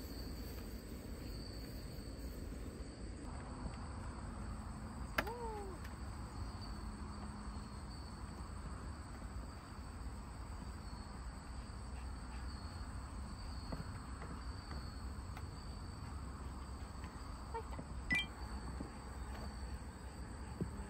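Insects trilling steadily as one thin high-pitched drone over a faint low rumble. A brief falling squeak comes about five seconds in, and a click near the end.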